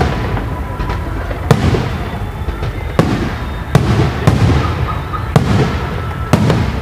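Fireworks display, with aerial shells bursting in a string of sharp bangs about a second apart, each followed by a fading crackle.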